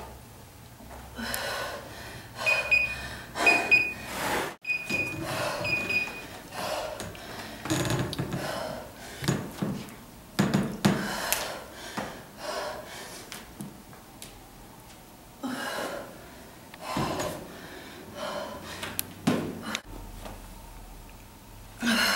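A woman breathing hard and exhaling forcefully in irregular gasps while exercising. A few short high beeps sound between about two and six seconds in.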